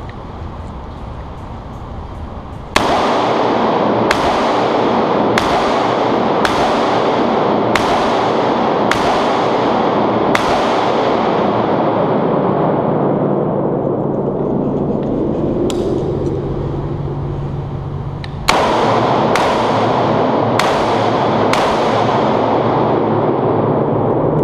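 Bushmaster AR-15 carbine firing in an indoor range. Seven shots come about a second apart, then after a pause five quicker shots. Each crack is followed by a long fading ring of echo off the concrete walls.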